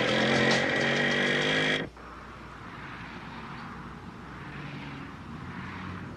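Small motorcycle engine running steadily as the bike rides off. The sound cuts off abruptly about two seconds in and gives way to a much quieter steady hum and hiss.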